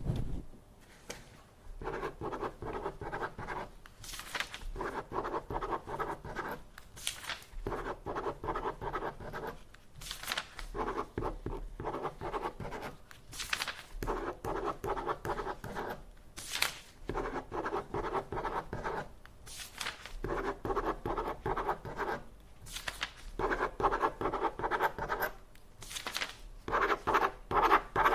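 Copy machine running off copies one after another: a steady whirring pass of about two seconds repeats roughly every three seconds, with a short clack between passes.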